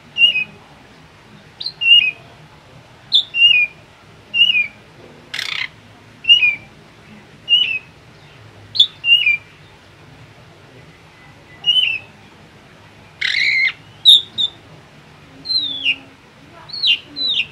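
Caged drongo singing: a short whistled phrase that drops in pitch, repeated about once a second, broken twice by a harsh, rasping call, about five and thirteen seconds in.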